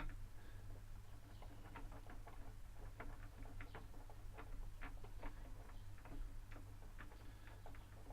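Small clicks and taps, several a second at uneven intervals, as an Allen key is turned and repositioned driving a long screw into a metal bracket, over a steady low hum.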